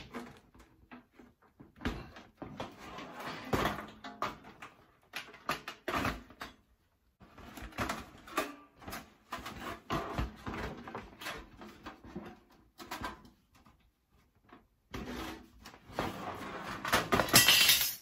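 Panasonic NB-G110P toaster oven's sheet-metal casing being handled and turned over on a wooden floor while its outer panel is worked off: scattered knocks and clatters with stretches of metal scraping. The loudest is a longer scrape near the end.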